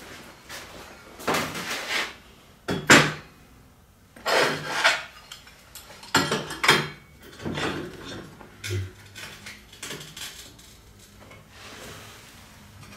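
Steel workpieces and clamps clanking and scraping on a steel welding table, with a series of separate metallic knocks, the sharpest about three seconds in.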